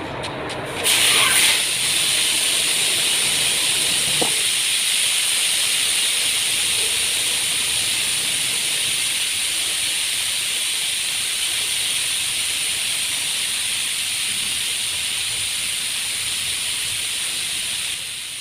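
A pressurised jet hissing steadily. It starts suddenly about a second in, runs for about seventeen seconds with one short knock about four seconds in, and stops shortly before the end.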